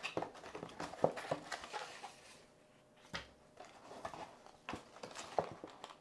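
Small cardboard box handled by gloved hands: flaps pulled open and card rubbing and tapping in scattered short clicks and rustles, with a quieter pause about two to three seconds in.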